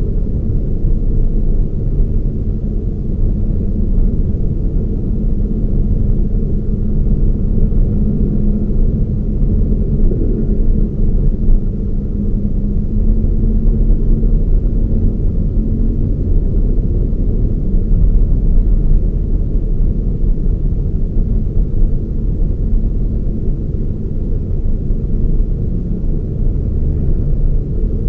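Toyota Raize small SUV driving, a steady low engine and road rumble with a faint even hum through about the first half.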